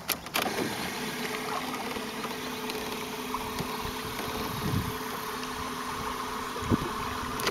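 Electric trolling motor running on a small fishing boat: a steady hum with a constant whine. It starts just after the beginning and cuts off suddenly at the end.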